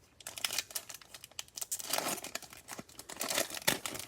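Trading-card pack wrapper being torn open and crinkled by hand: a dense run of irregular crackles, loudest about two seconds in and again near the end.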